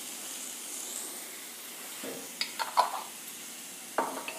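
Chopped capsicum, onion and tomato sizzling steadily in an oiled frying pan. A few short clicks and knocks come a little past halfway and again near the end.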